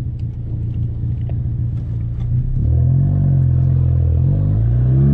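Turbocharged Ford Focus ST engine and exhaust running steadily, then revving up about halfway through, easing off, and rising again near the end.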